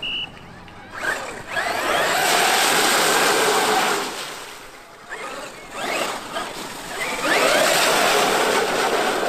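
Traxxas X-Maxx RC monster truck's brushless electric motor whining under throttle in three bursts, each starting with a rising whine. Under it runs a rushing hiss, with quieter dips between the bursts.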